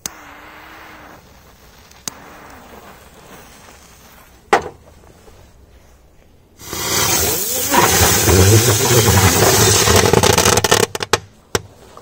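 Two spinning 'rose' firecrackers lit and dropped into a top-loading washing machine's drum. First comes a soft fuse hiss, with a sharp snap about a third of the way in. Then, from a little past halfway, a loud rushing hiss lasts about four seconds as they spin in the drum, stopping with a few clicks.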